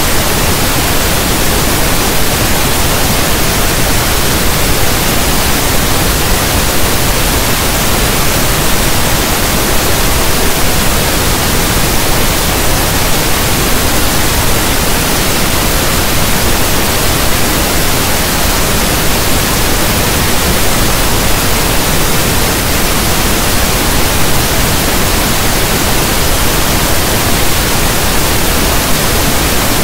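Steady, unbroken pink noise, a static hiss like a radio not tuned to a station.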